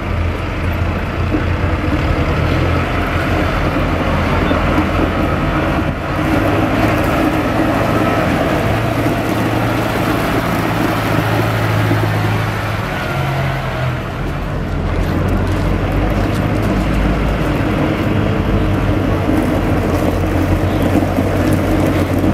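Diesel tractor engines running at low revs as large modern tractors, a Massey Ferguson 6470 and a New Holland T7, drive slowly past close by. The engine note shifts partway through.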